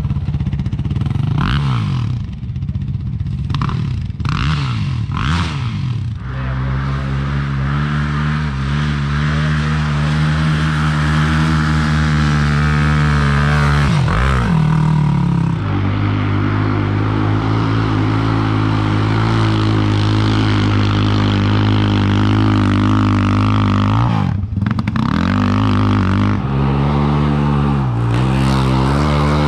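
Yamaha sport ATV engine under hard throttle climbing a sand dune. The revs rise and fall over the first few seconds, then hold steady and high, with brief drops and recoveries about 14 and 24 seconds in.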